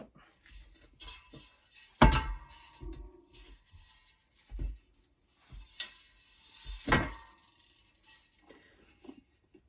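Metal clanks and knocks from handling a vintage steel bicycle wheel as its tyre and inner tube come off, two louder clanks about two and seven seconds in, the first ringing briefly.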